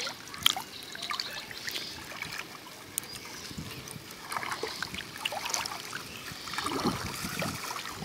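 Water sloshing and trickling around a person wading waist-deep through shallow floodwater, with small irregular splashes that grow a little louder in the middle and near the end.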